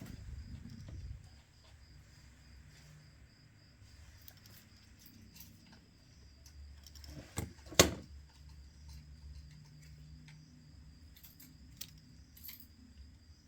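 Small hand tools and phone parts being handled on a work surface during smartphone disassembly: faint scrapes and small clicks, with one sharp tap about eight seconds in.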